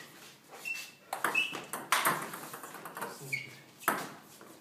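Table tennis ball clicking off paddles and the table during a rally: a string of sharp knocks, some with a short high ping, the loudest a little after one second, near two seconds and near four seconds.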